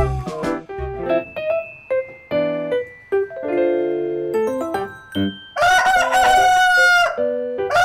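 Light piano-like background music, then a rooster crows loudly about three-quarters of the way in, one long cock-a-doodle-doo lasting about a second and a half. A second crow begins at the very end.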